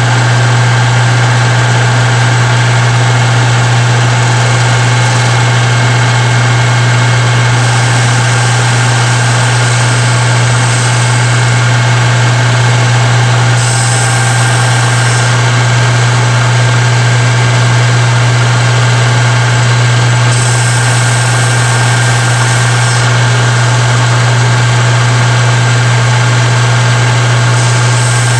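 A 13x40 metal lathe running steadily with a loud, even low hum. A higher hiss comes and goes four times, in step with the tool taking chamfering cuts on a steel shaft.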